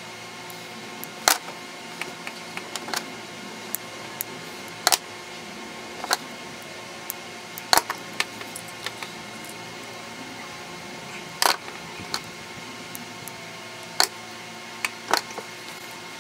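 Irregular sharp clicks and snaps from hand tools working on an extension cord's jacket, about a dozen over the stretch, with a steady low hum underneath.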